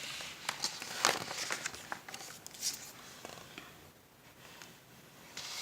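Paper rustling and crinkling in short bursts of small clicks and rustles, mostly in the first three seconds: a picture book's page being turned.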